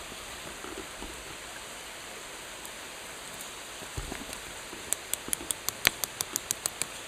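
Rapid sharp clicks, about six a second, starting about five seconds in: a hand-held stone hammering a freshly heated piece of rebar on a flat river stone used as an anvil, forging a knife blade. Before that, the steady rush of a river, with a low thump about four seconds in.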